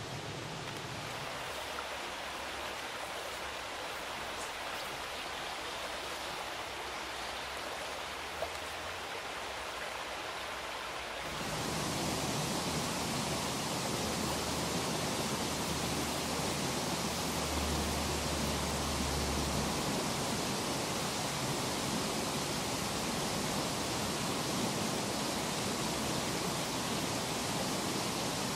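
Steady rush of flowing river water, which becomes louder and fuller about a third of the way through.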